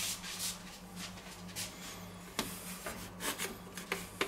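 Metal pizza peel scraping and rubbing across the stone of an electric pizza oven as a pizza is slid off it: a brief scratch at the start, then a run of short, sharp scrapes from about halfway in, over a faint steady low hum.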